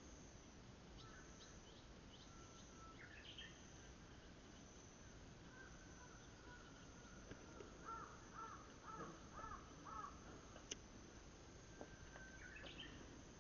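Faint song of a Japanese bush warbler (uguisu), a held whistle followed by a quick rising flourish, heard twice: a few seconds in and near the end. Between the two songs another bird gives a series of about six quick, repeated calls, the loudest sound here.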